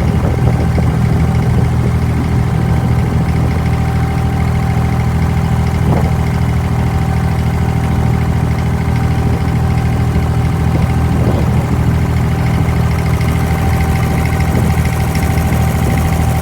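An abra's inboard diesel engine running steadily at a low, even pitch, heard from on board the boat.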